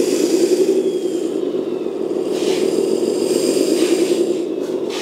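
Scale RC crawler's electric motor and gearbox running with the upturned car's wheels spinning freely, a steady whirring gear noise whose pitch swells and falls back twice. A hand rubbing the spinning tires adds short scrapes, a few times in the second half.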